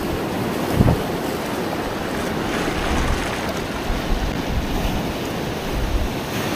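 Sea surf washing onto the beach in a steady rush, with wind buffeting the microphone.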